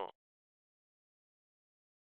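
Digital silence: a dead-quiet pause between lines of synthesized narration, after the tail of the last word ends.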